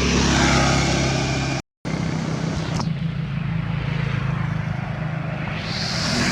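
Road vehicle engine running steadily with a low hum. It cuts out briefly just under two seconds in, and a rising hiss swells near the end, like a vehicle drawing close.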